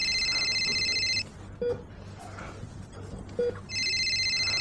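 An old mobile phone ringing with a trilling electronic ring tone. One ring ends about a second in and the next begins near the end, with short low beeps in the pause between.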